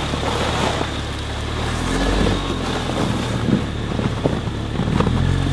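Land Rover Discovery Sport driving slowly over snow and rocks: the engine running with a low, steady hum, tyres crunching over the ground in scattered knocks, and wind on the microphone.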